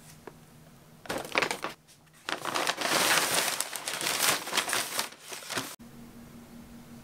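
Kraft-paper shopping bag and paper-wrapped packages rustling and crinkling as the packages are tipped out and slide onto a table. A short rustle about a second in, then a longer, louder stretch of paper crinkling that stops suddenly near the end.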